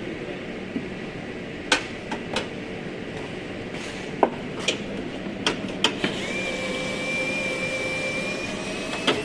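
Hand tools working on car body parts: about eight sharp knocks and clicks at irregular intervals over a steady background hum. From about six seconds in a steady high whine comes in and holds.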